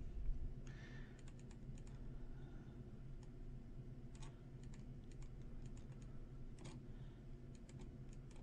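Scattered single clicks of a computer mouse over a low, steady hum.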